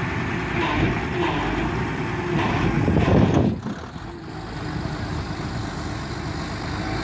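Volvo EW145B wheeled excavator's diesel engine running, with a louder rushing surge about three seconds in that cuts off suddenly.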